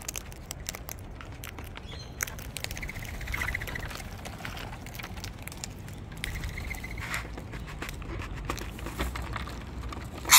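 Rainbow lorikeets chattering in two short trilling calls, each about a second long, over scattered small clicks of beaks working at food.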